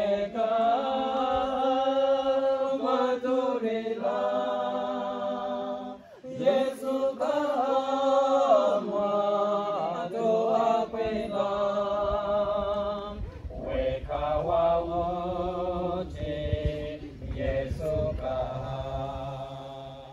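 A group of women and men singing a song together, with voices held and gliding through the phrases; the singing fades out near the end.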